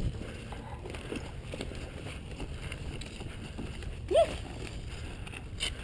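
Footsteps on dry dirt with wind buffeting the microphone. About four seconds in, one short shouted call rises and falls in pitch, followed by a brief sharp click near the end.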